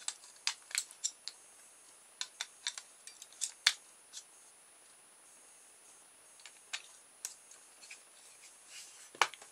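Batteries being pushed into the plastic battery compartment of a small battery-powered LED light, with the case handled: a run of sharp plastic clicks and taps, a pause of about two seconds, then a few more clicks and one loud sharp click near the end.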